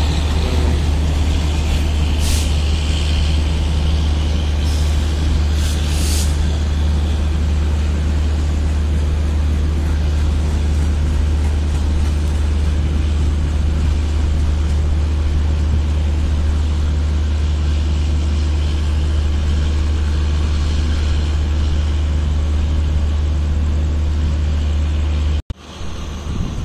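WDG-3A ALCO diesel-electric locomotive's 16-cylinder engine running with a steady, heavy low drone while shunting a coach, with a few short hisses of compressed air from the brakes in the first few seconds. The sound cuts off suddenly near the end.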